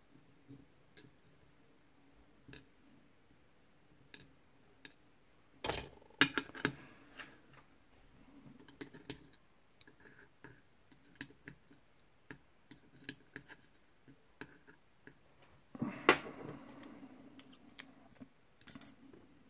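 Small metal clicks and taps of an Assa Flexcore lock cylinder being handled while it is taken apart to reach its pins, with a louder clatter about six seconds in and again about sixteen seconds in.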